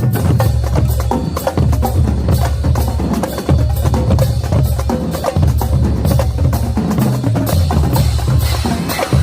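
Marching drumline playing a loud, fast cadence: rapid snare strokes over deep pitched bass drums.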